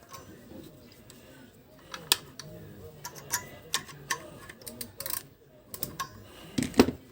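Irregular clicks and taps of small parts and tools being handled while a vacuum cleaner motor is reassembled, ending in a louder knock near the end.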